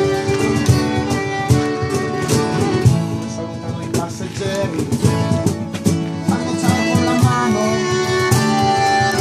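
Acoustic folk-rock band playing an instrumental passage: bowed fiddle over strummed acoustic guitars, with a diatonic accordion.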